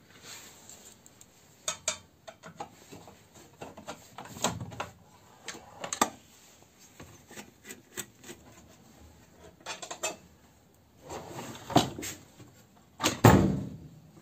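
Hand tools clicking and scraping on the screws of a scroll saw's housing, with the plastic cover parts knocking and clattering as they are handled. The loudest clatter comes about a second before the end, as the red plastic arm cover is lifted away.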